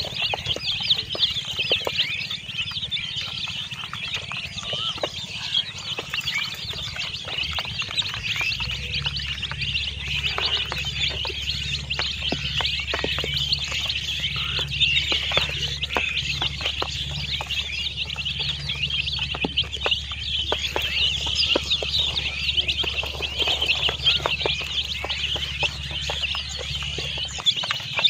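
A flock of baby chicken chicks peeping continuously, many short high chirps overlapping into a steady chatter.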